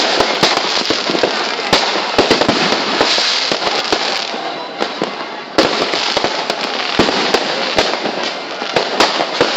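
Fireworks going off in a dense, continuous barrage of rapid pops and crackles with frequent sharper bangs. The sound thins briefly, then comes back abruptly about five and a half seconds in.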